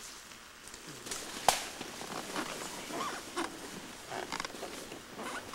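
Dry leaves, twigs and branches rustling and crackling as a riding elephant walks through forest undergrowth and brushes past foliage, with one sharp snap about one and a half seconds in.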